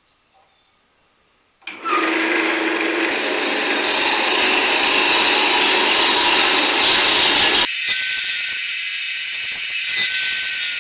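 A power tool starts abruptly about two seconds in and runs under load with a loud, coarse hiss. About eight seconds in the deeper part of the noise drops away, leaving a thinner, higher hiss with a faint whine.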